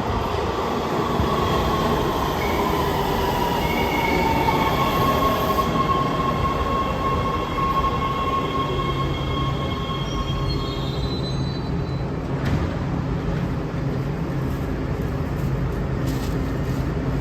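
Heavy-rail subway train moving through an underground station, its wheels squealing in high, ringing tones that fade out about twelve seconds in, over a steady rumble and a low hum.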